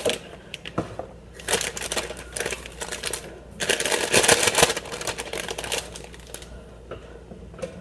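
Inner bag of a boxed cake mix being pulled from its cardboard box and handled, crinkling and rustling in two bursts with a few small clicks.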